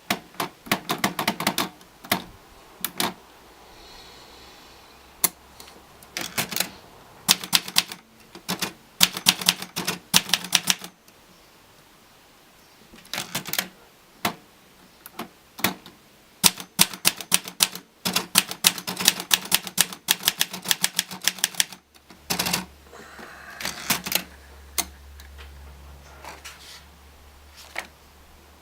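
Olivetti Lettera DL typewriter being typed on, its keys striking in quick bursts of clicks with short pauses between them.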